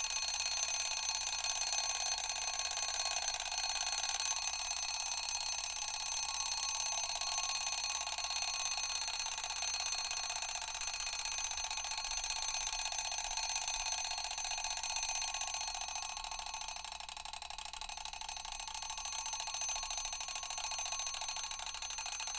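Mechanical alarm clock ringing continuously, its hammer rattling rapidly against the bell. The ringing softens somewhat about three-quarters of the way through, then picks up again.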